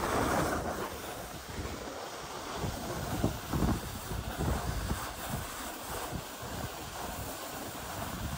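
Skis sliding over packed snow with a steady hiss, with wind buffeting the microphone in uneven low gusts.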